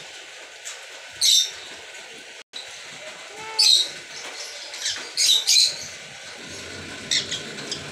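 Steady rain falling on a paved patio, with a short, high-pitched sound cutting in about six times.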